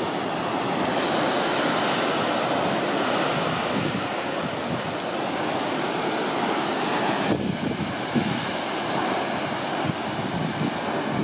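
Breaking ocean surf surging through a rock arch and into a sea cave: a continuous rushing wash that swells over the first few seconds and eases a little later. Wind buffets the microphone now and then.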